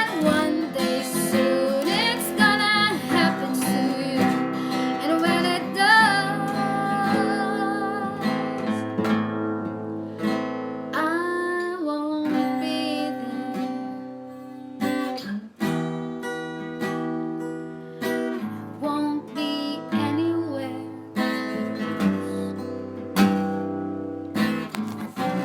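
Music played at a sound check: strummed acoustic guitar and a bass line, with a wavering, sliding melody line over them. No lyrics are sung.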